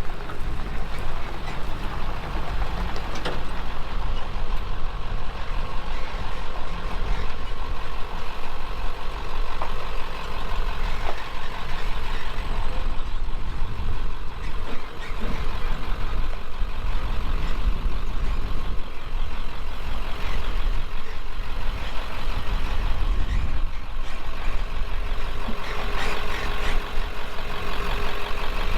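Truck engine running steadily with a deep low rumble.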